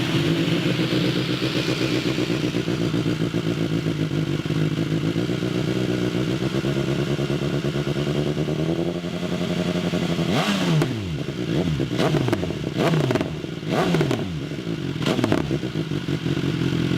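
2019 BMW S1000R inline-four engine breathing through an SC Project CR-T titanium slip-on silencer with no dB killer. It idles steadily for about ten seconds, then gets about five sharp throttle blips, each rev falling quickly back to idle.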